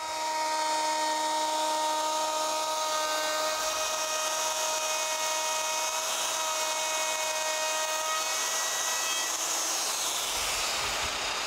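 Plunge router cutting a rabbet along the edge of a 5/4 poplar board: a steady high whine with a cutting hiss. Near the end the whine falls away in pitch.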